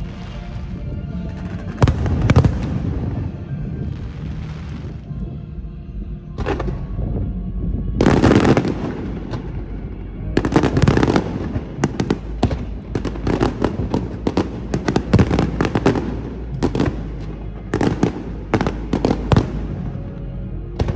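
Aerial fireworks shells bursting, heard from a few hundred metres away: a few separate booms, then from about halfway a dense run of rapid bangs and crackles that lasts until near the end.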